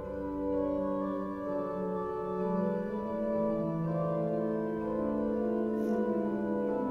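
Organ playing slow, sustained chords, the held notes changing every second or two.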